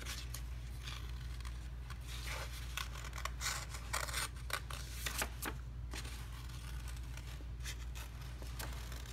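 Small scissors snipping through paper: a run of short, irregular snips, with the sheet rustling as it is turned.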